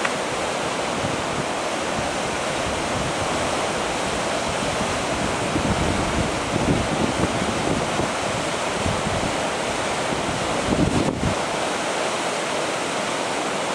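Steady rushing of a fast stream flowing over rocks beneath the footbridge, with a few brief low rumbles about six to seven seconds in and again near eleven seconds.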